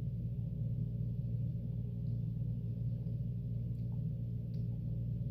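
A steady low hum with several overtones, unchanging throughout, with a few faint clicks in the second half.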